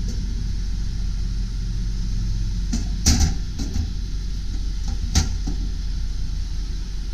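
The truck's 7.3L Power Stroke turbo-diesel V8 idling with a steady low rumble. Over it come a few sharp knocks about three seconds in and another about five seconds in.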